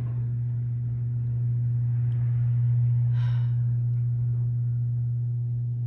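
A steady, low-pitched hum with faint higher overtones, like a motor or appliance running.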